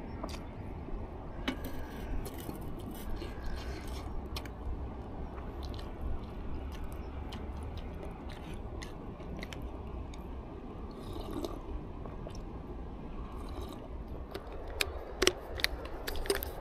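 A person chewing food, with scattered light clicks of tableware, and a few sharper clicks near the end.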